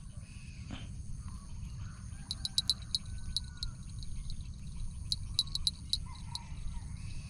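Insects chirping, with a steady high whine underneath and clusters of short, sharp high ticks every second or so.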